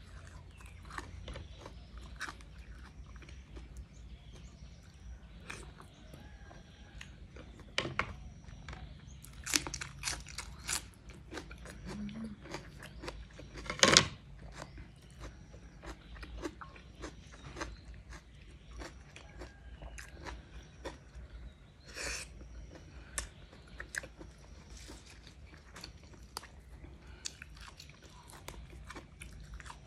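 A person chewing and crunching raw leafy greens and other food close to the microphone, with many small crisp bites and mouth clicks. One louder, sharper sound comes about 14 seconds in.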